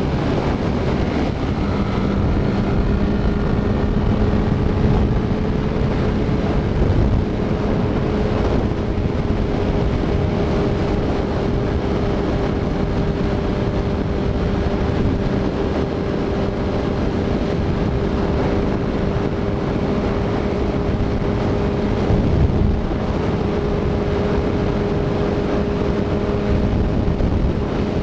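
Honda CBR sport motorcycle cruising at about 130 km/h. The engine holds a steady, unchanging drone under a rush of wind on the microphone.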